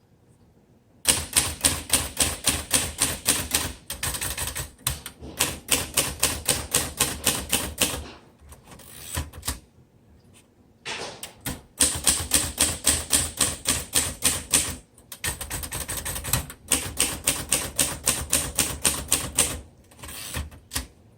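1946 Royal Arrow portable typewriter being typed on: quick runs of type-bar strikes, several a second, starting about a second in, with a short break around the middle before the typing resumes.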